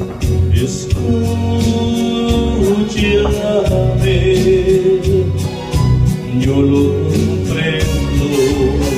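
A man singing a ballad into a handheld microphone over amplified backing music with a steady bass line and beat.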